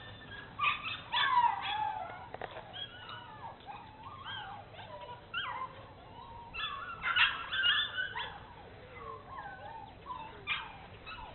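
Bernese Mountain Dog puppy whimpering and yipping in a string of short, high-pitched whines, loudest about a second in and again around seven seconds in.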